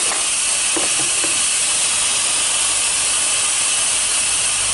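Boiler blowdown valve of a 5-inch gauge live-steam BR Standard Class 4 tank locomotive blowing down: a steady, loud hiss of steam and water escaping at under 30 psi. This is the boiler being emptied after the fire is drawn, flushing sediment out of the bottom.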